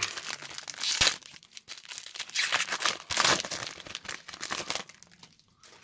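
Trading card booster pack wrapper being torn open and crinkled by hand, in irregular rustling bursts with a sharp snap about a second in, dying down near the end.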